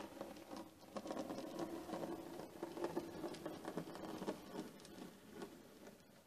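H0e model narrow-gauge steam locomotive running past: a steady small-motor hum under rapid clicking of wheels over the track. It grows louder as the locomotive passes close, about a second in, and fades near the end as it moves away.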